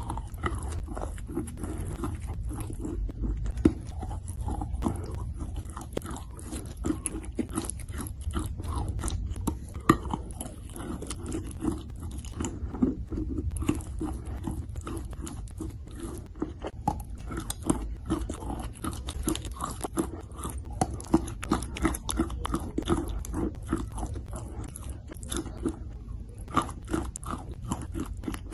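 Close-up biting and chewing of a chunk of chalk: steady crumbly crunching with many small mouth clicks, and a few louder crunches standing out.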